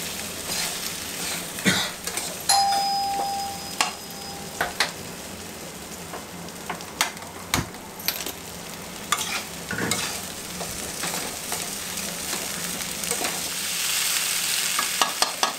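Diced potatoes sizzling as they stir-fry in oil in a kadhai, with a metal spatula scraping and tapping against the pan. About two and a half seconds in, a sharp metallic ding rings for about a second, and the sizzle grows louder near the end.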